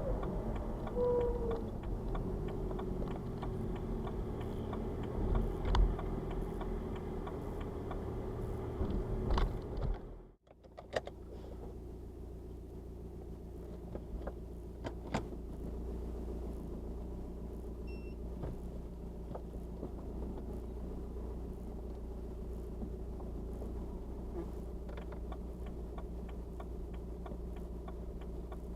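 BMW 116d's 2.0-litre N47 diesel and drivetrain heard from inside the car while driving, a steady low running noise with scattered light clicks. This is the unexplained cold-weather noise that garages suspect comes from a loose piece of metal in the exhaust after the DPF was removed. The sound cuts out briefly about ten seconds in, then carries on steadier and a little quieter.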